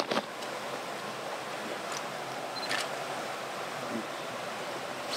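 Steady rush of a nearby stream, with a few faint handling clicks near the start and one about three seconds in.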